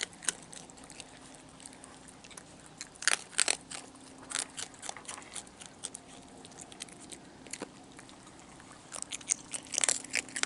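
Raccoons eating close by, with irregular wet crunches and chewing clicks that come in clusters and grow busiest near the end.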